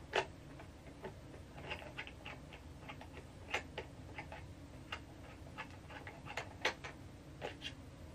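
Irregular small clicks and taps of hard plastic as a GoPro Hero 8 action camera and its mounting parts are handled and fitted together.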